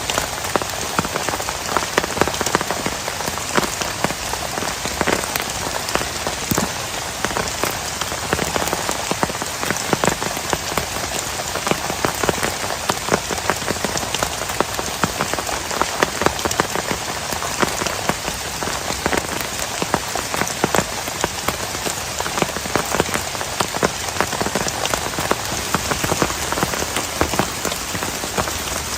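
Heavy rain falling steadily, with a dense, even hiss and many sharp individual drop strikes on a surface close to the microphone.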